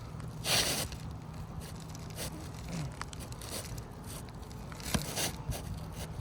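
Roof shingles being handled and worked into place: rough scraping and crinkling, with one loud rasp about half a second in and softer ones later.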